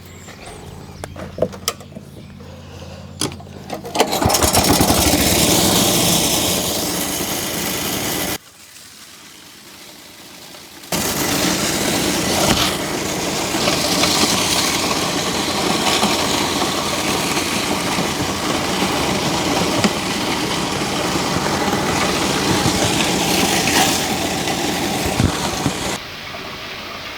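Masport 5 hp wood chipper running with a low engine hum, then much louder with a harsh rushing, grinding noise about four seconds in as material goes through the sharpened flail hammers. It is quieter for a couple of seconds near the middle, loud again for most of the rest, and drops back shortly before the end.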